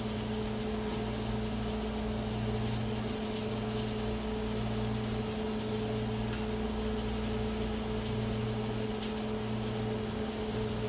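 Steady, even hum of a running kitchen appliance, with a low drone and a couple of held tones over a faint hiss.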